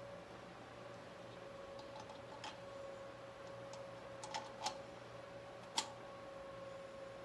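Light metallic clicks and taps of a VW Beetle's rocker arm shaft assembly being set by hand onto the cylinder head studs, a handful of sharp ticks with the sharpest near the end, over a steady faint hum.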